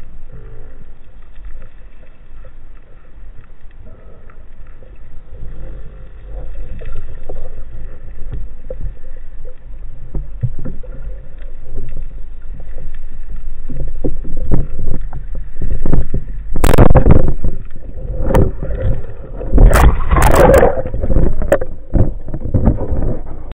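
Muffled underwater sound from an action camera's waterproof housing: a steady low rumble of moving water with soft knocks. In the last several seconds it grows louder, with a run of splashing and sharp clicks as the divers move near the surface.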